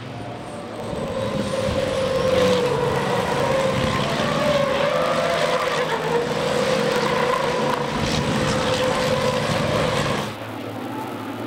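Race trucks' diesel engines running hard as a pack of racing trucks goes by. The engine note wavers up and down and swells about two seconds in. The sound drops away suddenly near the end.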